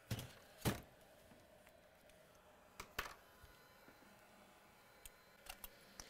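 A few light clicks and taps of small hand tools being handled on a workbench: the clamp and spudgers just taken off a repaired GPU connector. The clicks come singly, the loudest about a second in, with a pair near the middle and a few more near the end.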